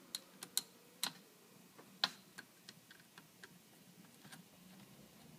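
Sharp, irregular metal clicks and taps of hand tools working the screws that hold the drive motor to the cart's gearbox, the loudest about two seconds in, followed by fainter ticks.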